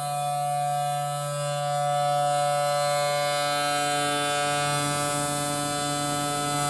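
Federal Signal Thunderbolt 1000T siren with a 4/5 port chopper, sounding its Alert signal: a steady two-note chord held at constant pitch, rising slightly in loudness about two seconds in as the horn rotates.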